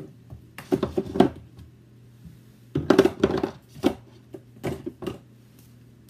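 Spice jar being shaken, giving quick bursts of rattling strokes: two longer bursts about a second in and three seconds in, then a few single shakes.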